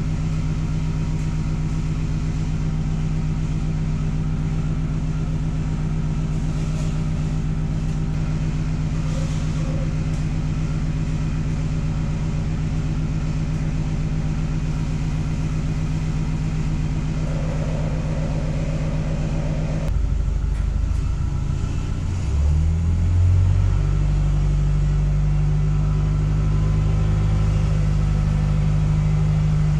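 Allis Chalmers C50 forklift engine idling steadily. About twenty seconds in the sound changes abruptly, and the engine picks up revs and runs louder as the forklift moves off.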